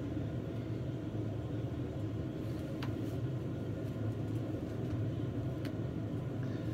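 Washing machine running in the adjoining laundry room: a steady low rumble. Two light clicks sound over it, about three and six seconds in.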